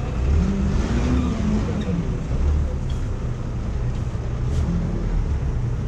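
Steady low rumble of nearby street traffic.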